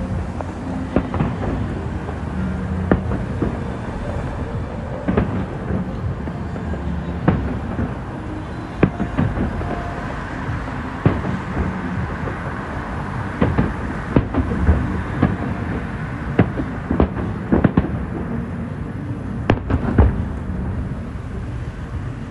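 Aerial fireworks shells bursting: irregular sharp bangs, roughly one a second, some in quick pairs, over a steady low rumble.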